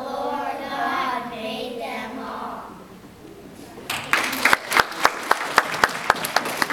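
Young children's voices singing a closing phrase together, then a short pause, and about four seconds in an audience starts applauding with sharp, quick hand claps.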